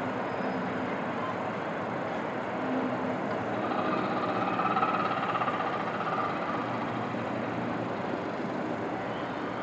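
Distant city traffic and rail noise, a steady hum, with a passing train swelling louder with a faint whine around the middle.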